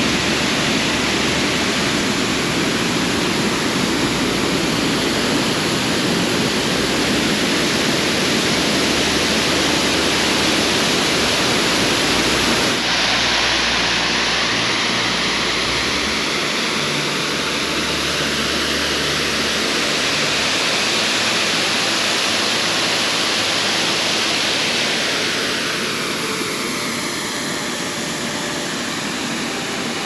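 Wapta Falls on the Kicking Horse River, a steady loud roar of falling water heard up close in its mist, with a low rumble that comes and goes.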